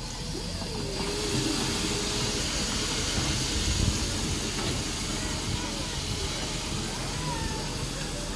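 Steady hiss of a mist spray nozzle, strengthening about a second in and holding, over a low rumble.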